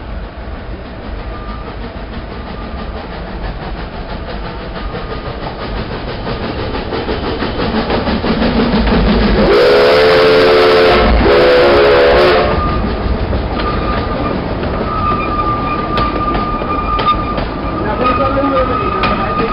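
Narrow-gauge steam locomotive drawing closer and passing, with two blasts of its steam whistle about ten seconds in, the loudest part. The coaches then roll by over the rails with a thin, steady squeal.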